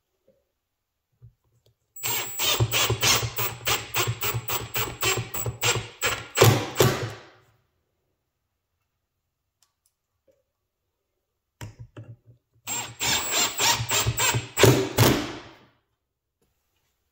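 A handheld power tool runs in two bursts, one of about five seconds and one of about three. Each burst has a rapid, regular clatter of several clicks a second over a steady motor hum and a high whine.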